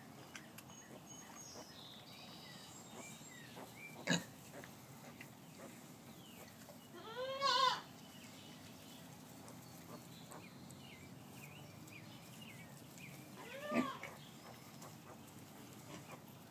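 Newborn piglets squealing: a short run of high, wavering squeals about seven seconds in and another squeal about fourteen seconds in. There is a sharp click about four seconds in.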